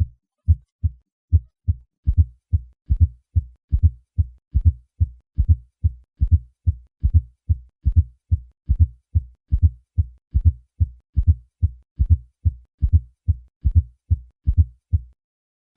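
Heartbeat with a fourth heart sound (S4 gallop): a soft, low-pitched extra sound in late diastole just before each first heart sound, giving a repeating 'Ten-nes-see' rhythm of low thuds, a little over two a second. The S4 is the sign of abnormal, stiff ventricular compliance, as with chronic hypertension.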